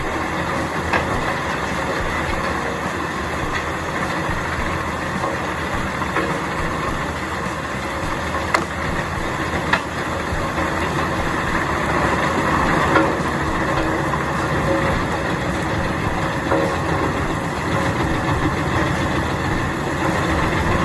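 Heavy machinery running steadily, the engine-driven sound of a large shredder or chipper at work, with a few sharp knocks partway through.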